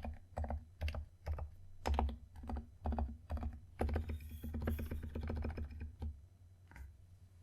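Typing on a Keychron K2 V2 mechanical keyboard with Durock Daybreak switches and AKKO OSA-profile keycaps, sound-dampened. Irregular keystrokes with a quick run of fast typing in the middle, stopping about six seconds in.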